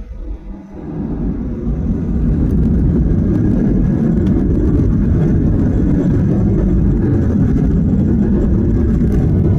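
Boeing 737-800 cabin noise, its CFM56-7B jet engines and the airframe heard from inside the cabin: a deep roar that swells over about two seconds and then holds loud and steady.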